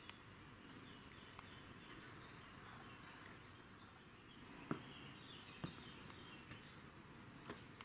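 Near silence: faint outdoor ambience with a few faint bird chirps. Three short soft knocks come in the second half.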